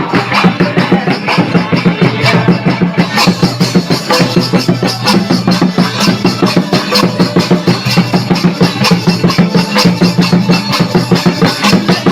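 Santali folk dance music with a quick, steady drum beat over held low tones.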